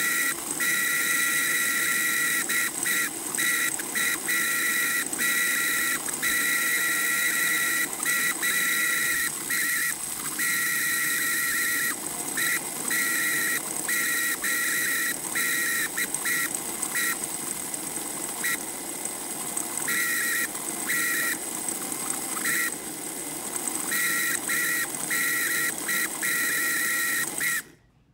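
Small electric motor and gearing of a vintage Playart model locomotive running on its side, giving a loud, steady high-pitched whistling squeal over a lower hum. The sound cuts out briefly again and again as the hand-held power contact drops, and stops shortly before the end; it is an abnormal noise whose cause is not yet found.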